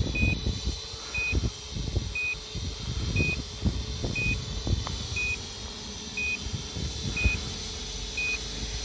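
A short, high electronic beep repeating evenly about once a second from a GPS quadcopter's control gear, over low, irregular thumps and rumble.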